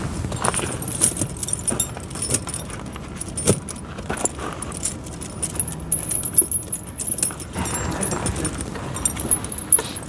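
Steel tractor tire chain links clinking and jangling as the chain is handled, with many short irregular metallic clicks.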